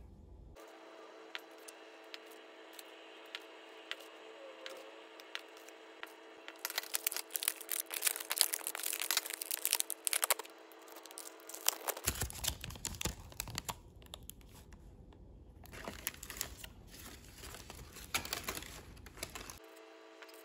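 Clear plastic strawberry clamshell packaging crinkling and crackling as it is handled and opened, with tearing as the seal on its edge is pulled. The crackling is faint at first and grows loud about a third of the way in.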